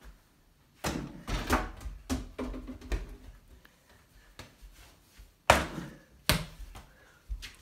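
A small rubber basketball bouncing on a hard vinyl floor as it is dribbled: a cluster of bounces and scuffs about a second in, then two loud sharp bounces a little under a second apart past the middle.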